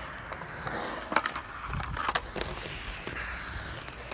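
Inline skate wheels rolling over concrete and up a ramp, with a few sharp clacks along the way and the loudest clack near the end as the skates hit the top edge of the ramp.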